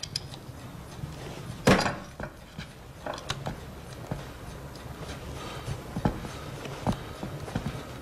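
One loud, sharp thud just under two seconds in, then scattered footsteps and light knocks on a wooden floor, over a low steady hum.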